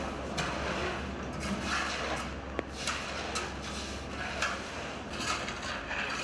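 Backhoe loader's diesel engine running as it moves slowly over a gravel- and mud-covered street, with a steady low rumble under repeated short scraping, crunching sounds and one sharp click a little before the middle.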